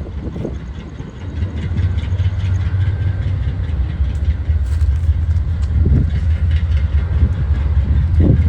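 A steady low outdoor rumble that dips about a second in and then holds, with scattered faint ticks over it.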